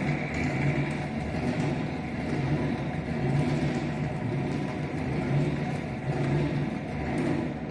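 Coil winding machine whirring steadily as it winds a table fan's stator coil, the level rising and falling slowly.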